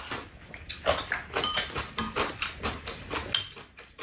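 Eating noises at a meal: mouth sounds of chewing, with many short clinks of spoons and chopsticks against bowls.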